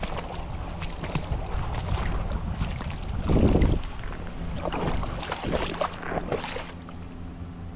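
Shallow creek water splashing and sloshing around a hand reaching into it, with wind rumbling on the microphone. There is a louder surge about three seconds in.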